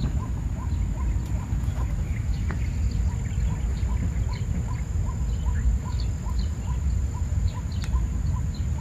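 Birds calling: one bird repeats a short call about two to three times a second, with scattered higher chirps from others. Under them runs a steady low rumble and a thin, steady high-pitched tone.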